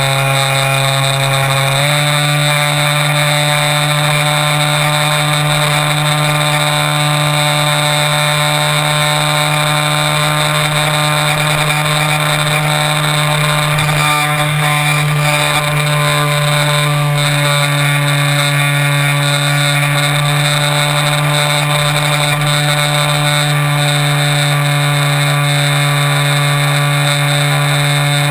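Electric motor and propeller of a Multiplex Xeno RC plane in flight, heard from a camera mounted on the airframe: a steady, loud whine that steps up slightly in pitch about two seconds in and then holds.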